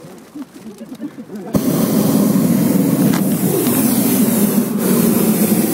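Hot-air balloon's propane burner firing: a loud, steady roar that starts suddenly about a second and a half in and holds level.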